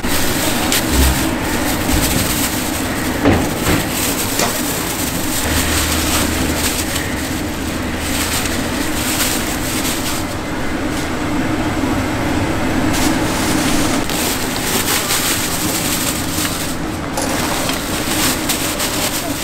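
Steady roar of gas burners under large pots of boiling soup, with frequent light clatter of ladles and containers.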